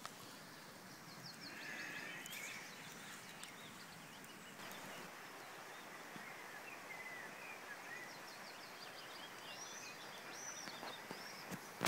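Birds singing faintly, with short repeated trills and chirps, over a steady hiss of outdoor background noise. A few sharp knocks come right at the end.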